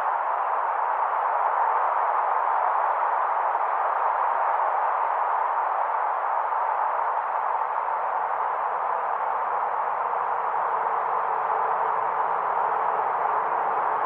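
Wind blowing steadily, an even whooshing noise without gusts or breaks.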